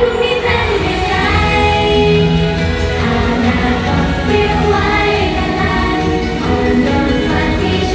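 Live idol pop song: several young women singing into microphones over the backing music, through a stage PA.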